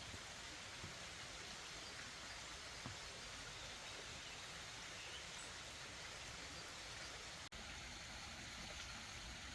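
Mountain stream flowing at a distance: a faint, steady hiss of running water.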